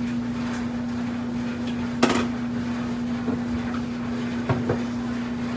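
Sliced bell peppers dropped into a hot frying pan of beef, sizzling over a steady low hum. There is a sharp clack about two seconds in and a few lighter knocks later.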